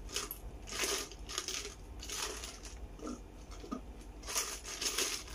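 Milk tea with tapioca pearls being drawn up through a straw in a series of short, hissy slurps.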